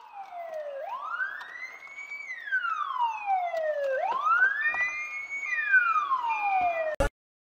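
Police car siren wailing, its pitch rising and falling slowly in two cycles of about three seconds each, with a few short steady tones over the second cycle. It cuts off abruptly about seven seconds in.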